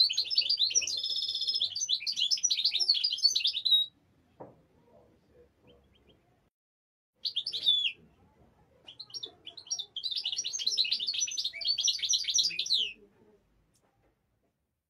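European goldfinch singing: a fast, tinkling twitter mixed with buzzy notes. One long phrase ends about four seconds in, a short call comes a few seconds later, and a second long phrase runs from about nine to thirteen seconds.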